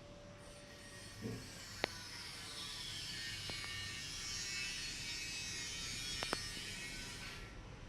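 Hands rubbing briskly over hair and scalp in a head massage: a steady rustling hiss that swells in the middle and fades near the end, with a few sharp clicks.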